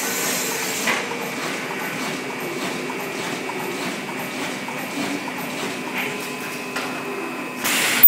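Clear-book sealing and welding machine running: a steady machine hum with a few separate clicks and knocks from its mechanism, then a short loud hiss near the end.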